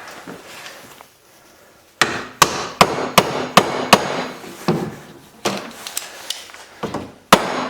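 Mallet striking the threadless metal push-on wheel cap to drive it onto the snowblower's wheel shaft: sharp blows about two or three a second starting about two seconds in, a brief gap, then more blows near the end, seating the cap snug.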